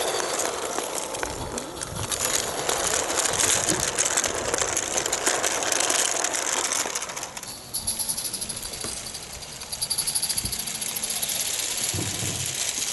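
Garden-scale model train running along its track: a steady rattling of wheels on rails, fullest while it passes close by, turning thinner and higher about eight seconds in.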